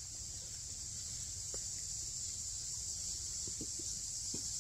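Steady, high-pitched chorus of insects chirring without a break, with a few faint short knocks.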